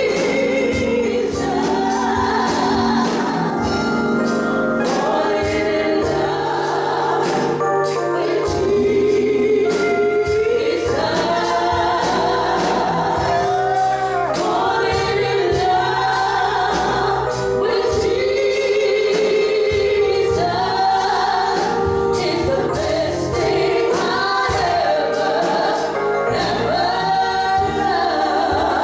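Gospel singing by a group of voices with instrumental backing and a steady beat.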